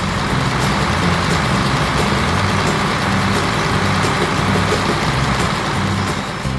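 A tractor engine sound effect running steadily over background music. It comes in suddenly and eases off near the end.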